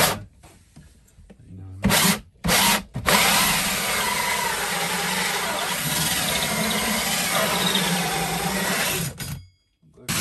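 Cordless drill spinning a hole saw into a wooden panel. Two short bursts of the drill about two seconds in, then one continuous cut of about six seconds that stops abruptly near the end.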